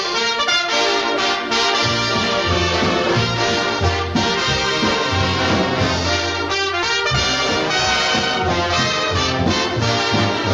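Orchestral cartoon title-card music, with trumpets and trombones leading over a full band, playing without a break.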